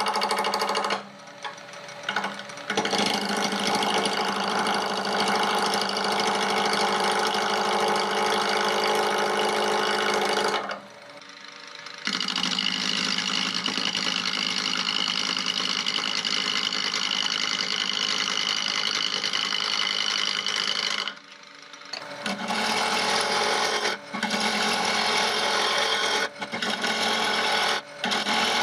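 Wood lathe running while a gouge cuts a spinning wood blank down to round, a steady rough cutting sound over the motor's hum. The cut stops briefly three times and in a few short breaks near the end as the tool is lifted off.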